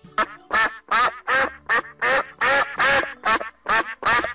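Duck quacking in a fast, even series of short nasal quacks, about two or three a second.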